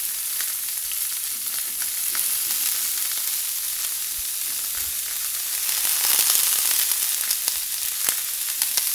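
Marinated head-on shrimps sizzling in olive oil on a hot cast iron griddle, cooking on its residual heat with the burner switched off. A steady hiss with small scattered pops and crackles grows louder about six seconds in as more shrimps go down.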